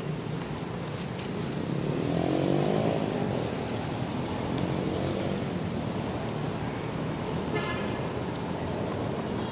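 A motor vehicle's engine running nearby, rising in pitch about two seconds in, over steady outdoor traffic noise, with a brief high-pitched sound about seven and a half seconds in.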